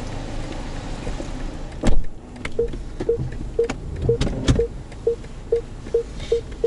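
Inside a BMW 520d, steady cabin and road rumble, a thump about two seconds in, then short, identical electronic warning beeps repeating about twice a second and coming faster near the end, like parking sensors as the car closes on an obstacle.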